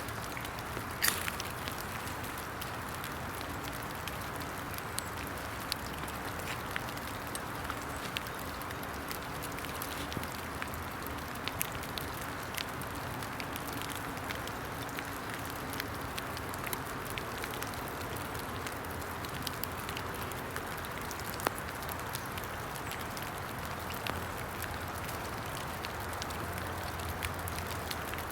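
Steady patter of rain falling in woodland, with many small scattered ticks of drops and one sharp click about a second in.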